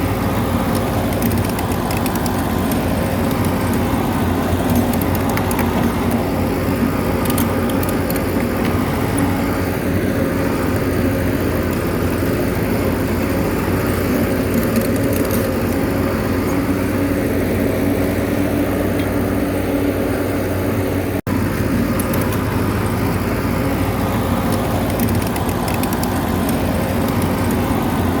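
Bulldozer's heavy diesel engine running steadily under work. The sound breaks off for an instant about two-thirds of the way through.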